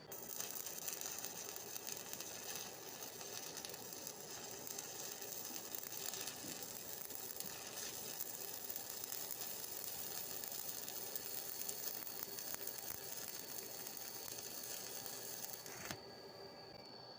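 Stick welding arc crackling and sizzling steadily as a bead is run, stopping abruptly near the end when the arc is broken.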